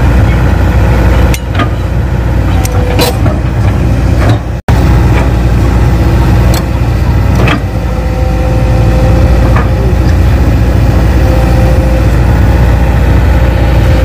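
Kobelco SK200 crawler excavator's diesel engine running steadily while the arm and bucket dig into a dirt pile, with a few short knocks. The sound drops out for an instant about four and a half seconds in.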